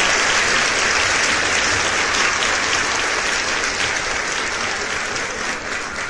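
Audience applauding, a dense steady clapping that gradually fades.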